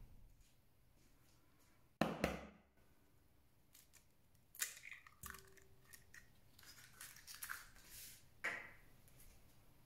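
An egg cracked with one sharp knock about two seconds in, then the shell crackling and snapping as it is pulled apart over a glass bowl, with further small clicks and a last crack near the end.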